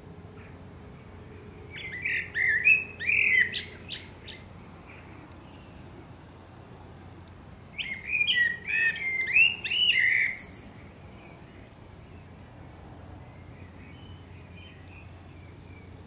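Male Eurasian blackbird singing two song phrases a few seconds apart, each a fluty warble ending in high, squeaky twittering.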